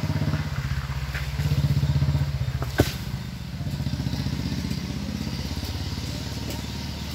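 Small petrol engine of a motorized coconut-tree climbing machine running steadily, swelling briefly about one and a half seconds in. A single sharp knock comes near three seconds in.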